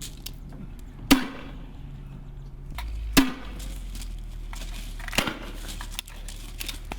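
Three weapon shots about two seconds apart, each a sharp report followed by a short echo; the third is weaker than the first two. These are shotgun or grenade-launcher fire on a live-fire range.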